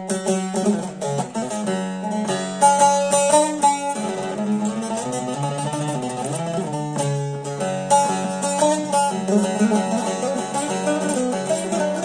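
Long-necked bağlama (saz) played solo: a plucked melody over a steady drone string, with a few passages of rapid strokes.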